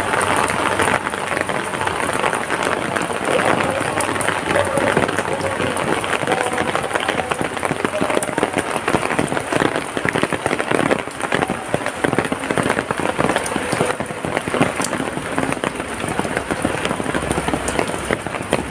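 Heavy rain falling and pattering on surfaces: a steady, dense hiss thick with sharp individual drop hits.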